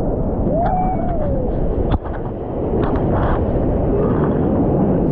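Ocean surf through a waterproof action camera at the water's surface: a wave breaks over the swimmer, with churning whitewater and water washing against the camera housing over a heavy low rumble. A single sharp knock comes about two seconds in.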